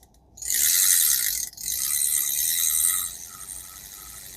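Daiwa 1600C spinning reel being cranked by hand: two quick spins of dense high-pitched gear and rotor whirring with clicking, then slower, quieter ticking about three times a second. The external trip is tripping the bail as the rotor comes around.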